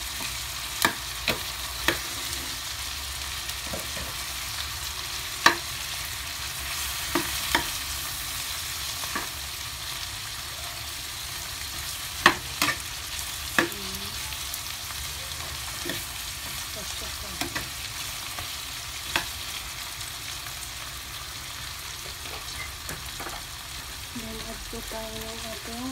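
Whole shrimp sizzling in butter in a frying pan, with a steady hiss of frying. A metal spoon knocks and scrapes against the pan as the shrimp are flipped and stirred, with sharp clicks mostly in the first half.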